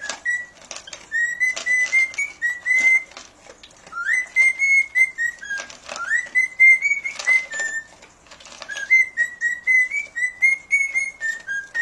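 Cockatiel whistling a tune in three repeated phrases of gliding notes, over the crunching of a dog chewing dry kibble.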